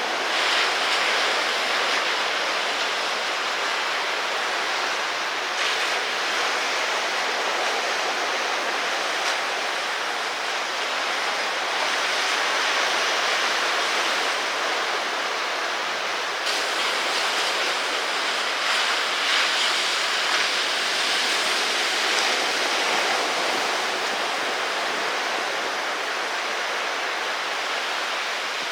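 Steady rush of ocean surf and moving water, a continuous noise without distinct breaks, changing character slightly a few times.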